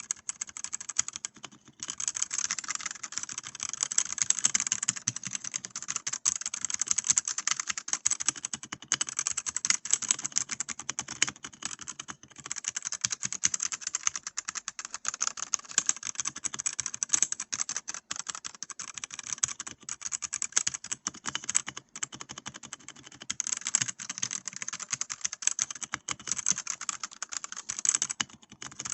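Typing on a Redragon UCAL K673 PRO 75% mechanical gaming keyboard: a fast, steady run of key clicks and clacks, with brief pauses about 2, 12, 22 and 28 seconds in.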